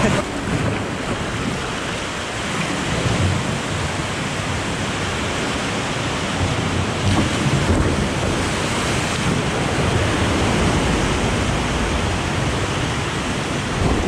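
Seawater surging and splashing against a concrete seawall, a steady rush of churning waves close to the microphone.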